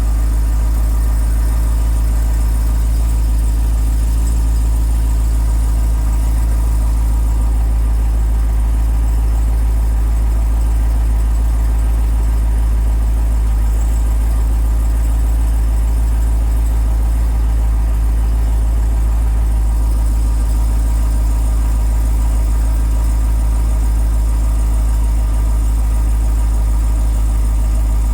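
Jeep Grand Cherokee Trackhawk's supercharged 6.2-litre V8 idling steadily as it warms up after a cold start. The squeaky, tinkling noise it makes when cold has almost gone.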